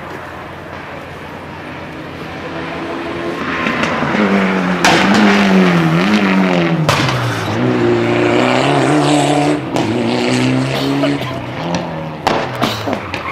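Rally car approaching and passing close on a gravel-and-tarmac stage. Its engine revs hard, and the pitch swings up and down through gear changes and lifts. There are a few sharp cracks near the end as it moves away.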